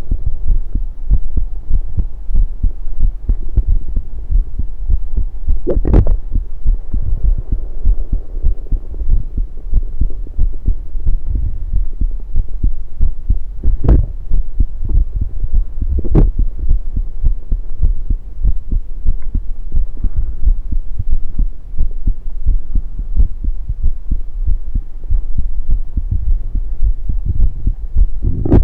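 Heartbeat picked up by a USB electronic stethoscope pressed to the chest: a steady, deep, low throbbing pulse. A few brief sharp sounds cut through it, about 6, 14 and 16 seconds in.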